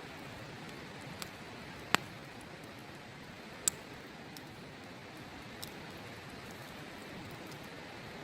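Open wood fire crackling, with a few sharp pops, the loudest about two seconds in and another just before four seconds, over the steady rush of a river.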